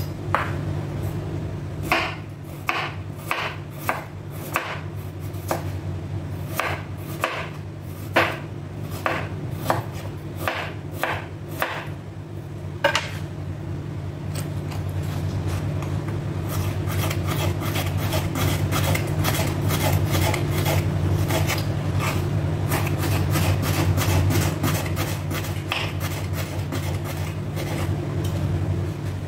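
Kitchen knife chopping cucumber on a wooden cutting board, irregular sharp knocks about two a second. About halfway through, a smaller knife slices carrots into thin strips on the board with a fast, even run of light strokes. A steady low hum runs underneath.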